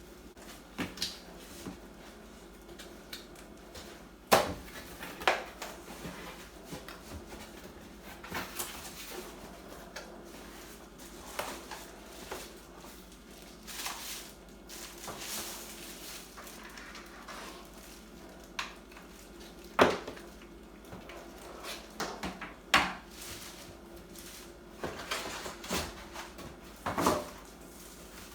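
Cardboard box and packaging being opened and handled: irregular knocks, clicks and short rustles, with a few sharper knocks about four seconds in, near twenty seconds and near twenty-three seconds. A faint steady hum runs underneath.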